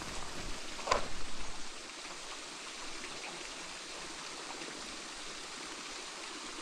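River water flowing steadily, with wind rumbling on the microphone for the first couple of seconds and one brief louder sound about a second in.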